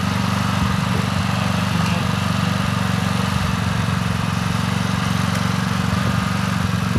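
Small portable gasoline generator running steadily at an even pitch, powering a battery tender that is charging a dead snowmobile battery.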